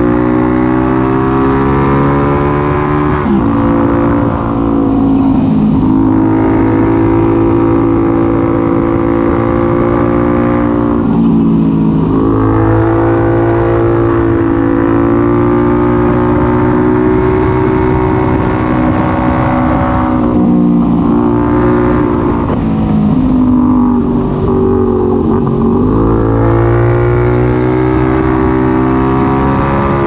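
Benelli 752S's 754 cc parallel-twin engine, running with the exhaust silencer removed, heard on board while riding. The engine note climbs and falls with the throttle, with several quick drops in pitch between pulls.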